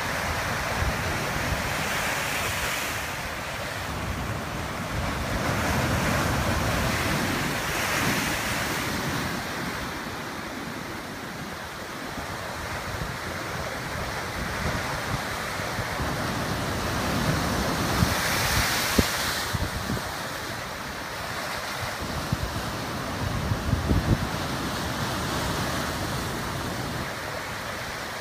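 Ocean surf breaking and washing along a rocky shoreline with tide pools. It swells louder and ebbs back every several seconds, with wind buffeting the microphone at times.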